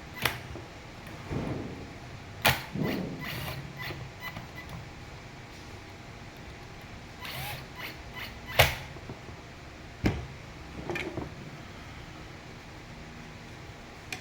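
Electric fan parts being handled and fitted together: several sharp clicks and knocks, the loudest about two-thirds of the way through, with rustling and scraping between them.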